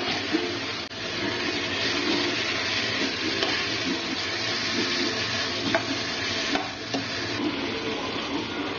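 Chicken pieces in a green chilli masala sizzling in a hot nonstick pan while a slotted metal spatula stirs them, with a sharp tap about six seconds in.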